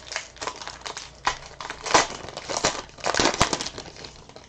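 Foil trading-card pack wrapper crinkling as it is torn open and the cards are pulled out, in irregular crackles that are loudest about two seconds in and again just past three seconds.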